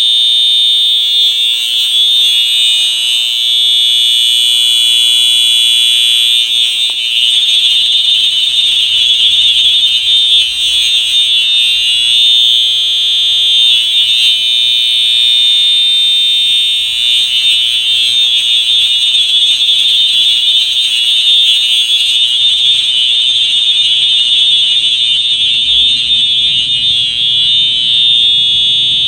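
FCI HEF electronic fire alarm horn sounding a loud, continuous high-pitched tone.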